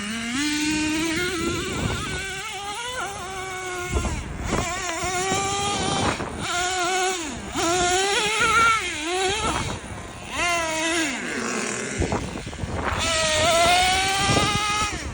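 Nitro engine of a Traxxas T-Maxx RC truck revving up and down in repeated blips, its pitch rising and falling with each blip. This is the noise the owner is asking about, cause unknown.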